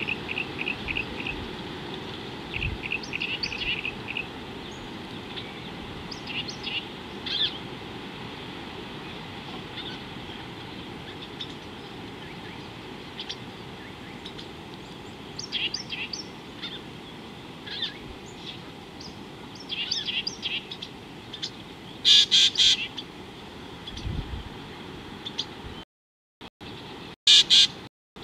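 Wild birds chirping and calling, with quick runs of repeated short notes early on and two louder bursts of calls about 22 and 27 seconds in, over a steady low background noise. The sound cuts out briefly a few times near the end.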